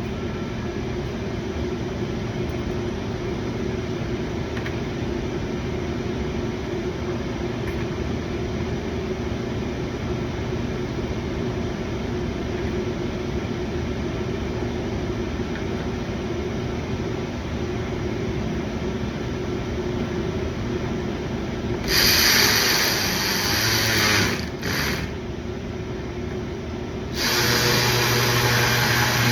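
A steady background hum, then near the end a power ratchet runs in two bursts of about two and a half seconds each as it drives in the bumper fasteners.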